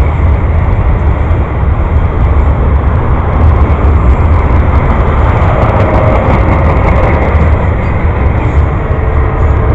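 A rail train loaded with track sections passing close by: continuous heavy low rumble and rolling noise of wheels on the rails.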